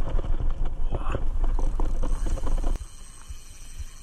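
Wind buffeting a camera microphone held close to a fishing rod and reel, with irregular knocks and rubbing of handling noise. About three seconds in it drops abruptly to a much quieter background.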